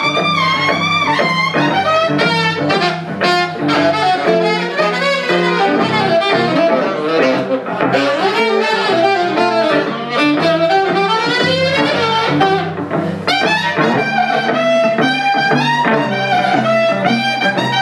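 Live saxophone and electric guitar duo playing a bluesy jazz tune: the saxophone carries a wavering, vibrato-laden melody over the guitar's steady chords and bass notes.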